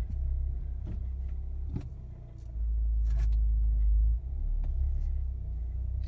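Volkswagen Golf R's turbocharged four-cylinder engine idling, heard as a low rumble inside the cabin, with a few light clicks as the DSG gear selector is moved from reverse into drive. The rumble dips briefly and then swells for about two seconds past the middle.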